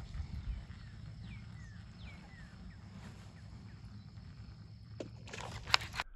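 Outdoor ambience with a low steady rumble, a few short falling bird chirps between about one and two and a half seconds in, and a handful of sharp clicks and knocks near the end.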